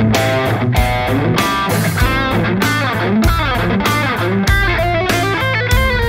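Electric guitar playing a melodic lead line, with notes bent and shaken in vibrato, over a backing track of drums keeping a steady beat and a low bass.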